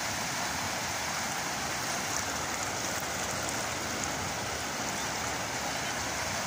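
Steady rain mixed with the rush of fast-flowing muddy floodwater.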